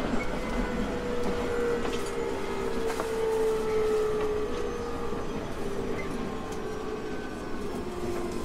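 JR East 719 series electric multiple unit running, its motor whine (the 'jet sound') slowly falling in pitch as the train slows, over steady running noise with a few sharp clicks from the wheels.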